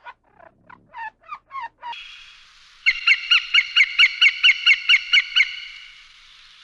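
A bird calling: a few short calls, then a fast run of about five calls a second over a steady hiss.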